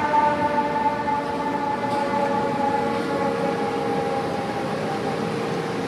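Fire engine siren sounding as the pumper moves off, one long tone with its pitch sliding slowly downward.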